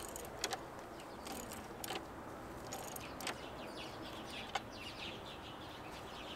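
Faint, scattered metallic clicks of a socket wrench on car battery terminal clamps as they are tightened, with birds calling faintly in the background.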